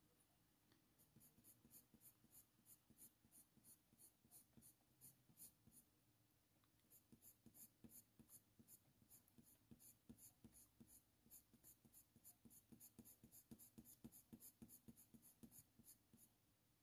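Faint scratching of a Faber-Castell Polychromos coloured pencil on hot-press watercolour paper, drawing in fine fur hairs with short strokes at about three a second. There is a short pause partway through.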